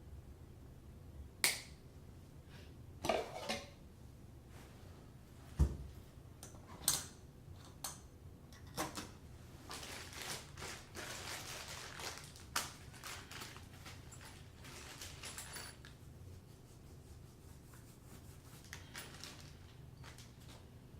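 Faucet parts being handled: a series of sharp clicks and knocks of small hard parts, with a stretch of rustling from about ten to sixteen seconds in.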